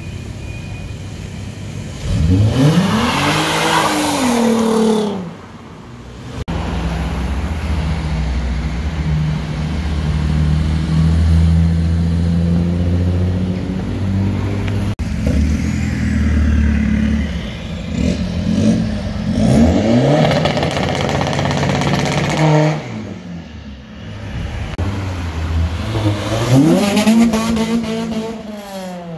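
Cars driving past on a street, with engines revving up and easing off several times and a steady low engine drone in between.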